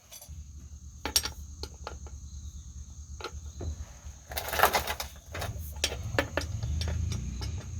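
Mechanic's tool work on a driveshaft's bolts: scattered metallic clicks and taps, with a short loud burst about four and a half seconds in, over a steady low hum.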